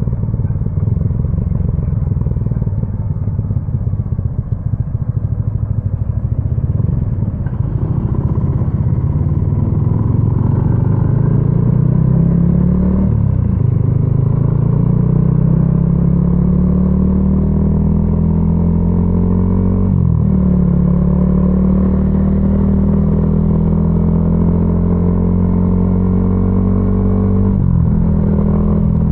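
Yamaha XSR155's single-cylinder 155 cc engine, with a homemade exhaust, running unevenly at low revs for several seconds. It then pulls away and accelerates with rising pitch, each of three upshifts about seven seconds apart bringing a brief drop in pitch, and settles into a steady cruise.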